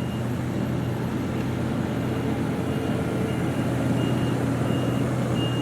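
Heavy diesel construction machinery running steadily at an asphalt paving site, with a reversing alarm beeping about one and a half times a second. The beeps drop away briefly and come back about halfway through.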